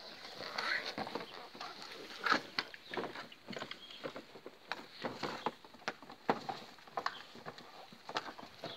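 Presa Canario puppies moving about on dry grass: light, irregular rustling and tapping.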